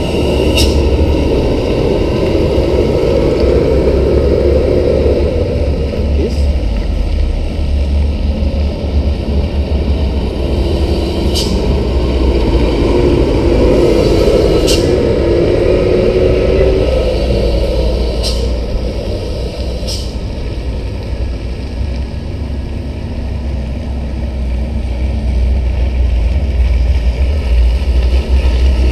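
Heavy Hino diesel dump trucks driving past on a muddy haul road: a steady deep engine rumble that swells twice as trucks come close, with several short sharp clicks scattered through it.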